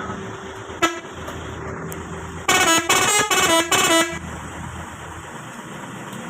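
Truck's multi-tone 'telolet' air horn (Basuri V3, 17 tones) giving one short toot about a second in, then playing a quick run of changing notes for about a second and a half.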